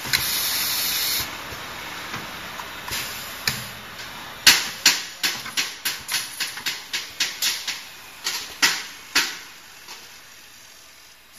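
Snap band making machine with a pneumatic press: a loud burst of air hiss, then a steady hiss and a run of sharp clacks with short hissing tails, about three a second, that stop near the end.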